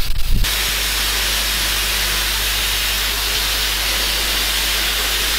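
Hypertherm plasma torch cutting a small hole through steel deck plate: a steady, loud hiss of the plasma air jet that starts about half a second in, with a low steady hum underneath.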